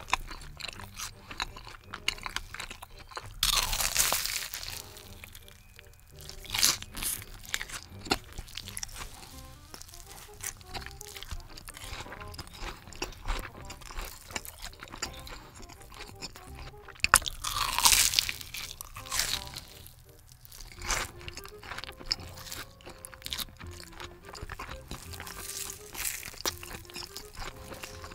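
Close-miked crunching and chewing of a crumb-coated, cheese-filled corn dog. There are two louder, crisp bite flurries, about four seconds in and again just past the middle, among steady chewing crunches.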